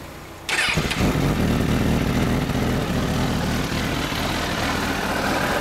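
2006 Honda CBR1000RR Fireblade's inline-four engine started about half a second in, catching within a second and then idling steadily.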